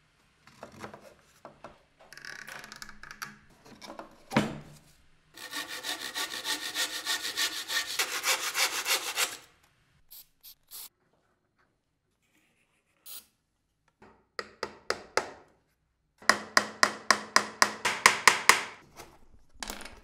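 Woodworking done by hand, in short takes: two spells of quick, rhythmic back-and-forth strokes of a hand tool on wood, about four or five strokes a second, one near the middle and one near the end. Between them come a few short hisses of an aerosol spray can.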